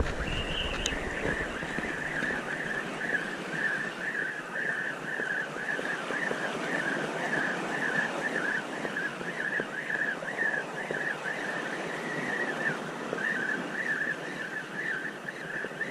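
Spinning reel being cranked on a lure retrieve: a steady, slightly wavering whir from its gears, over a steady background hiss.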